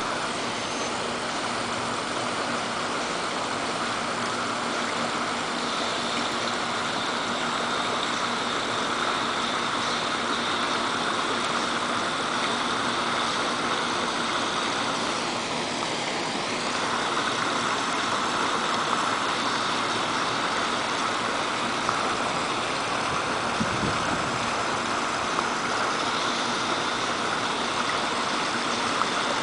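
Steady rush of splashing water from a swimming pool's water feature.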